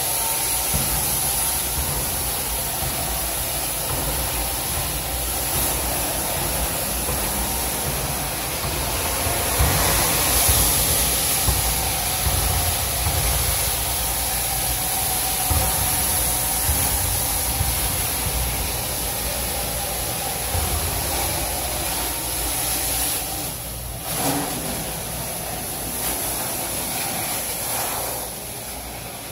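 Carpet-cleaning extraction through a Rotovac Bonzer wand: a steady rushing hiss of suction and spray over a low machine rumble as the wand works the carpet, dipping briefly and falling off a little near the end.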